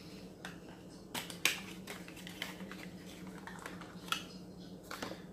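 Small scattered clicks and taps of a plastic cosmetic jar and its packaging being handled, over a faint steady low hum.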